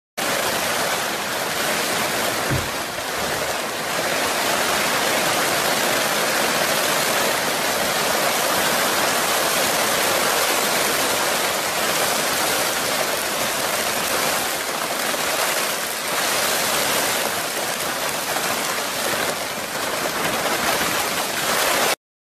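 Torrential rain pouring down in a violent thunderstorm, a dense steady hiss that swells a little with the gusts. A single low thump comes about two and a half seconds in.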